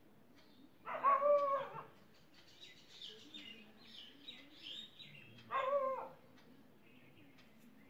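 Birds calling: two louder pitched calls, one about a second in and a shorter one near six seconds, with higher chirps between them.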